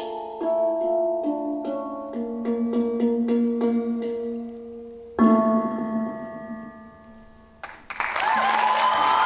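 Hang drum (handpan) played with the hands: a quick run of ringing steel notes, then one loud final stroke a little after five seconds that rings out and fades. Audience applause and cheering break out about eight seconds in.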